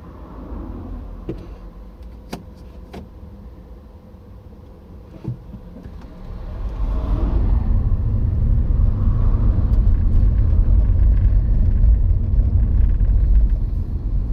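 A few sharp clicks, then a car's engine and road rumble swell up about six seconds in and run on steadily, as the car gets under way.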